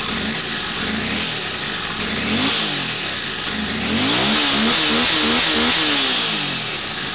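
Honda CX500's V-twin engine being revved by hand on the throttle: two short blips, then a longer, louder rev about four seconds in, each time falling back toward idle. The throttle return is being checked for correct gas-cable tension.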